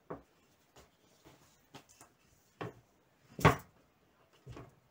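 Glass baking dish knocking against a plastic cutting board while a baked pie is flipped out of the dish: a string of short knocks and clunks, the loudest about three and a half seconds in.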